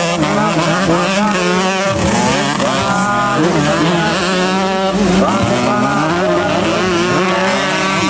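Several racing motorcycle engines running at once, their overlapping pitches rising and falling as the riders rev up and shift.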